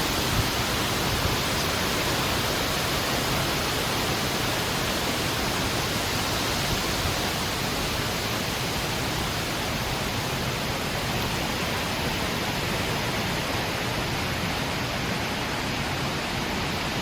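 Heavy storm wind blowing as a steady, even rush with no gusts or breaks.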